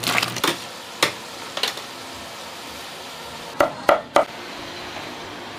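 A plastic scoop knocking a few times against a steel pot, then three sharp chops of a cleaver through basil leaves onto a cutting board, about three and a half seconds in, over a steady hiss.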